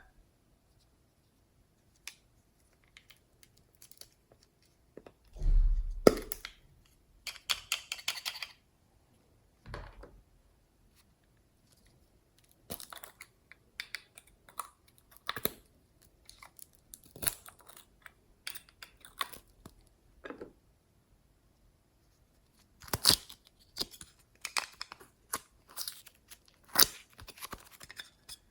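Slime being squished and stretched by hand: irregular bursts of sticky clicks, pops and crackles with quiet gaps between them, and a dull thump about five seconds in.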